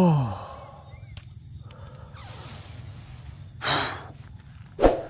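A man's low, falling groan, then a short rustling burst and a sharp knock near the end, over a steady high insect drone.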